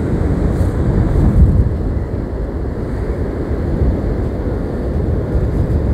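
Strong gusty wind buffeting the phone's microphone in a low rumble, over the wash of storm surf.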